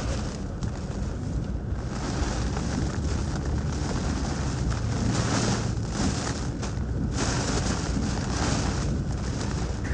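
Hurricane-force wind and driving rain around a vehicle: a loud hiss that swells and eases with the gusts, over a deep rumble of wind on the microphone.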